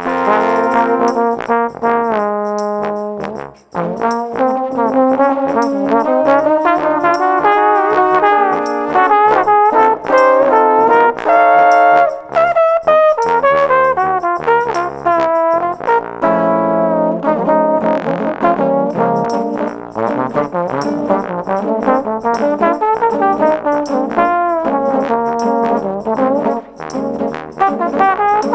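Jazz played on trombones: alto trombones carrying the melody and backing lines over a bass trombone groove, with a tambourine shaken in a steady rhythm.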